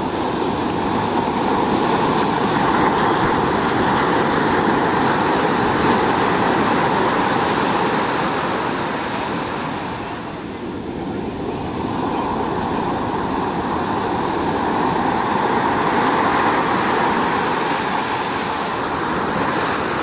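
Ocean surf washing onto a sandy beach: a steady rush that swells and eases, with a short lull about halfway through.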